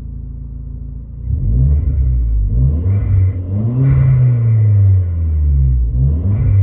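2011 Hyundai Genesis 2.0T's turbocharged four-cylinder through a Race Demon cat-back split dual exhaust, idling steadily for about a second and then revved several times, the pitch rising and falling with each blip.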